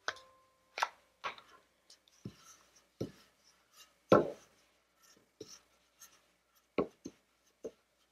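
Wooden rolling pin on dough and a marble slab: a string of irregular short knocks and taps as it is set down and rolled, the loudest about four seconds in.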